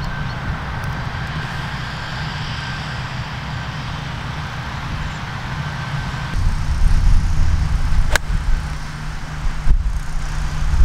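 A single crisp strike of a golf wedge on the ball about eight seconds in, over a steady low mechanical rumble that gets louder a couple of seconds before the shot.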